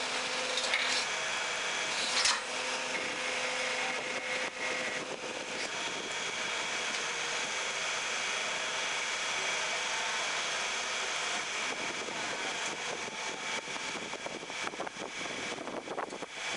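Hydraulic paving-block press running, its power pack giving a steady mechanical noise with a whining tone as the control-valve levers are worked. A sharp knock about two seconds in.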